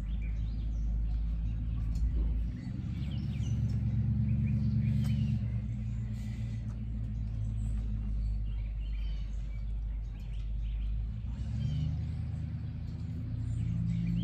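A low, steady motor hum, a little louder a few seconds in, with birds chirping over it.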